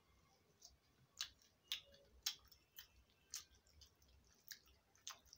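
Quiet chewing of a mouthful of rice: a string of short, irregular mouth clicks and smacks, roughly one every half second.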